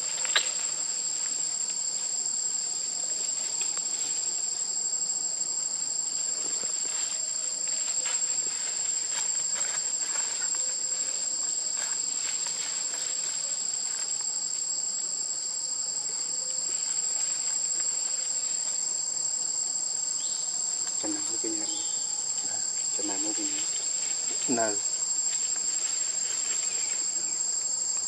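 Steady, shrill chorus of insects, with a few short pitched animal calls about three-quarters of the way through.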